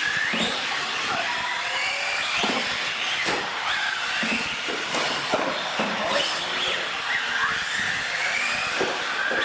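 Several radio-controlled UTV trucks racing, their electric motors whining in pitches that rise and fall with the throttle over a steady hiss of tyres on a concrete floor, with a few short knocks.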